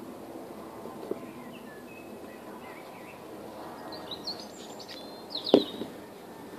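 Small birds chirping in short high calls over steady outdoor background sound, with a single sharp knock near the end.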